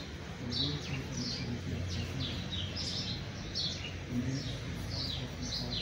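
Small birds chirping over and over, short high falling chirps about two or three a second, over a steady low hum.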